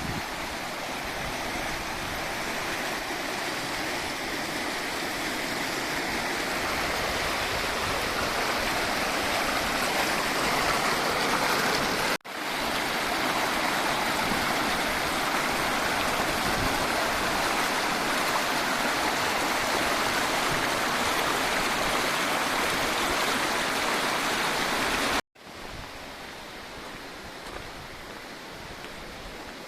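Mountain stream running, a steady rush of water. The sound cuts out sharply for an instant about twelve seconds in, and again near the end, after which it is quieter.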